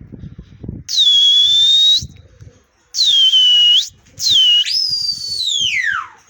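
Three loud, high human whistles, each about a second long or more, with the last one rising and then sliding steeply down in pitch. This is a pigeon keeper whistling to send his pigeons up flying.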